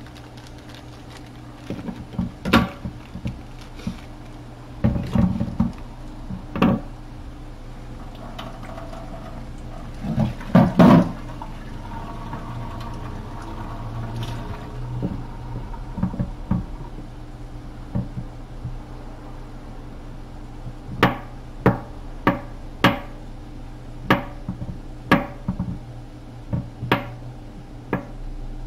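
Kitchen work at a wooden cutting board: utensils knocked and set down on the board, then, in the last third, a knife chopping on the board in a steady run of strokes, roughly one or two a second, over a low steady hum.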